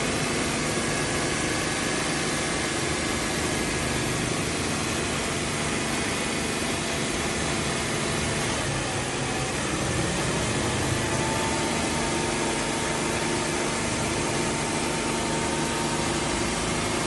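Old car's carburetted engine idling steadily, with a steady hiss over it.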